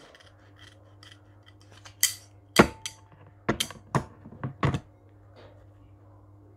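Scissors cutting open a plastic packet: a quick run of sharp snips and short rasps of plastic, clustered about two to five seconds in.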